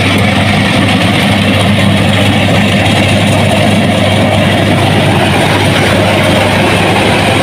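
Rice combine harvester's diesel engine and threshing machinery running steadily, a loud continuous drone with a deep steady hum.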